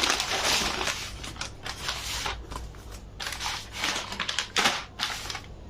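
Plastic packaging being handled and unpacked, giving irregular rustling and crinkling noises that come in short bursts.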